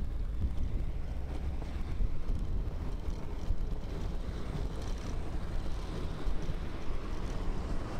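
Wind buffeting the microphone of a seat-post-mounted bicycle tail-light camera while riding along a road: a steady, fluttering low rumble.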